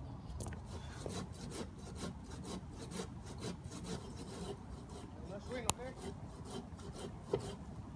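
Irregular scraping and rubbing of wood, with scattered clicks and one sharp snap about six seconds in.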